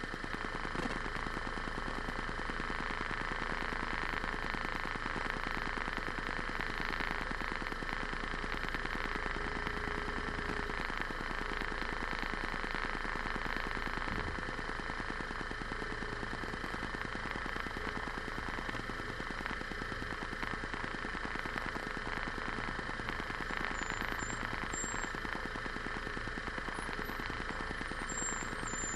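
Vehicle on the move, its engine and road noise running steadily with a fast, even pulsing throb.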